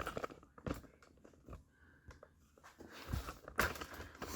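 Light clicks and rustling handling noises from hands working at a differential, growing busier about three seconds in.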